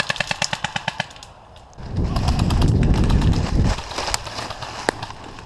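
An airsoft electric gun firing a short full-auto burst, about a dozen rapid shots in the first second. A loud low rumble of noise follows from about two seconds in, with a few scattered ticks after it.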